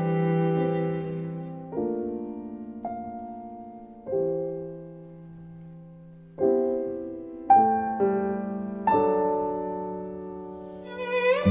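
Slow background piano music: chords struck one at a time, each left to ring and fade before the next. A violin comes in near the end.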